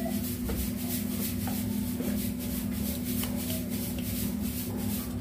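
A round baking pan loaded with scallop shells being pushed and slid across a countertop, rubbing and scraping, over a steady low hum.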